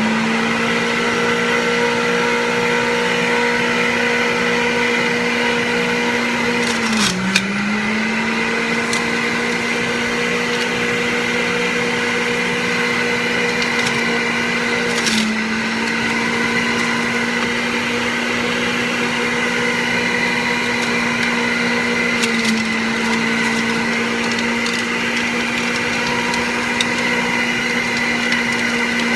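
Centrifugal juicer motor running steadily on its low speed while spinach and kale are fed in. Three times, roughly every seven or eight seconds, it gives a knock and its pitch sags briefly under load before recovering.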